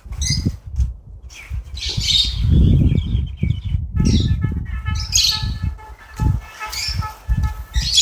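Birds chirping repeatedly over loud, uneven low rumbling noise.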